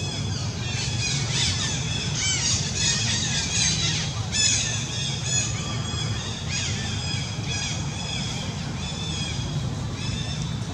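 Infant pig-tailed macaque squealing: a long run of high-pitched, arching squeals and screeches, densest in the first half, over a steady low hum.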